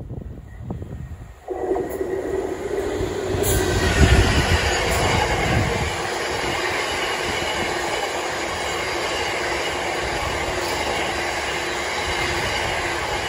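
Freight train of bogie hopper wagons passing close by on the rails. The sound jumps up about a second and a half in as the head of the train arrives, is loudest around four seconds in, then settles into a steady rolling rumble of wagon wheels on the track.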